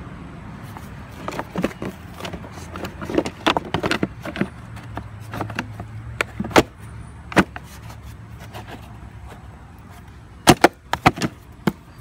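Hard plastic clicks and knocks as the black plastic belt cover of a Troy-Bilt TB200 mower is pushed and worked back into place by hand. A scatter of light clicks comes first, then single sharper knocks, and a quick run of loud knocks near the end.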